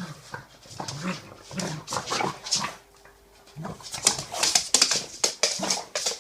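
A dog playing with a cat, giving short whimpers and grunts, then a run of quick scuffling clicks from about four seconds in as the two tussle.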